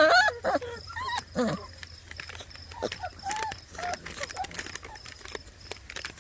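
Six-week-old Basset Hound puppies whining and yipping as they play, in short high wavering calls that are densest in the first second and a half, over scattered clicks and scuffling.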